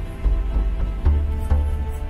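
Background music with heavy, deep bass notes.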